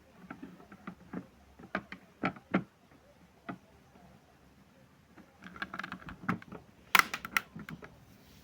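Irregular clicks and knocks from a washing machine being handled, with quick runs of clicks near the middle and the loudest cluster about seven seconds in.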